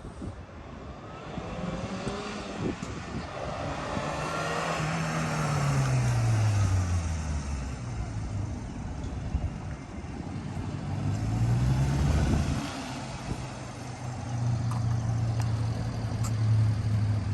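Subaru Sambar mini truck's supercharged 660 cc four-cylinder engine (EN07) running under way: its pitch drops over a few seconds, climbs again, then holds steady near the end.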